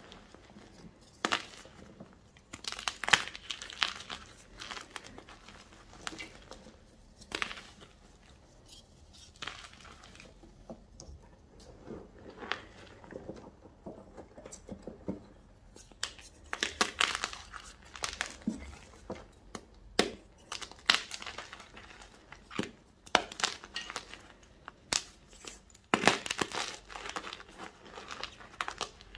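Hands crushing and squeezing blocks and loose powder of gym chalk (magnesium carbonate), making irregular soft crunches and crumbles, with quieter spells between the handfuls.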